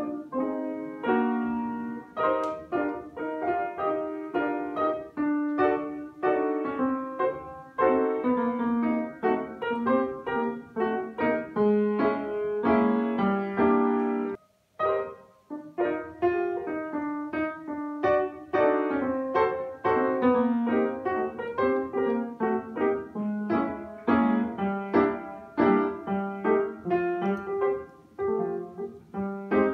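Upright piano being played: a continuous tune of melody and chords, which stops for about a second midway and then goes on.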